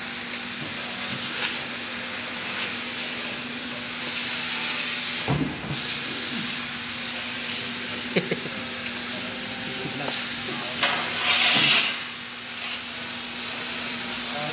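Steady machine whine and hum from running workshop machinery, with a metallic clank about five seconds in, a few lighter knocks, and a loud burst of hissing shortly before the end.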